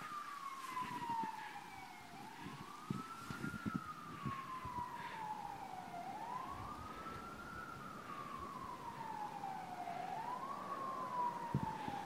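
Faint emergency vehicle siren wailing, its pitch sweeping up quickly and sliding slowly back down about once every four seconds.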